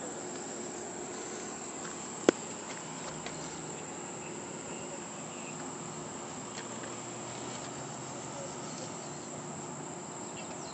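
Insects droning steadily at a high pitch in the creekside vegetation, with one sharp click about two seconds in.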